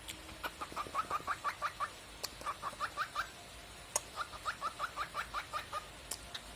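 Cockatiel chirping in quick runs of short repeated notes, about six a second, in three bursts with brief pauses between, and a couple of sharp clicks in between.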